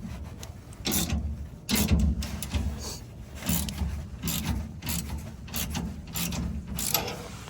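Hand ratchet wrench working the nuts on a truck's leaf spring clamp: a series of short, irregular ratcheting strokes.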